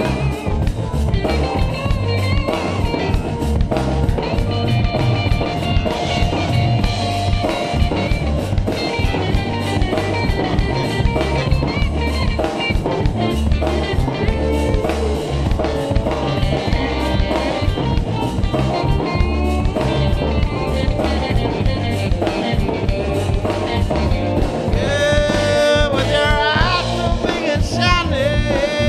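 Live blues-rock band playing: electric guitar, electric bass, drum kit and electric keyboard together in a steady groove.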